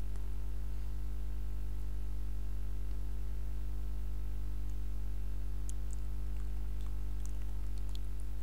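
Steady low electrical hum, a mains-frequency buzz picked up by the recording setup, with a few faint clicks in the second half.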